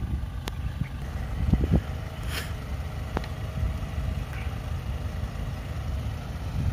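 Low rumble of a vehicle engine running at low speed, with a few faint clicks and a short hiss a little over two seconds in.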